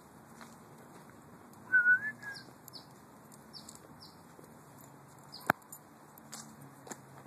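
Small birds chirping again and again in short high notes. About two seconds in comes a louder short wavering whistle, and a sharp click about five and a half seconds in.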